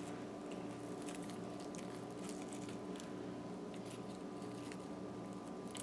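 Faint crackling and rustling of crisp fried fish and paper towel as the fillets are picked up and handled, in small scattered clicks over a steady low hum.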